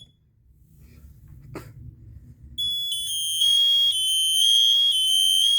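A click at the start, then about two and a half seconds in a smoke alarm sounding in test mode: a loud, piercing, high-pitched beeping that pulses on and off.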